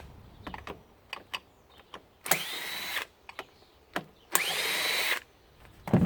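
Power drill run in two short bursts, its motor whining up in pitch at each start and holding there briefly, with small clicks of parts being handled between bursts. A loud knock near the end.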